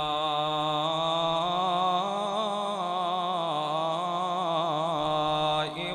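A man chanting the Arabic opening praises of an Islamic sermon, holding one long melodic note whose pitch wavers in ornaments. The voice breaks off near the end.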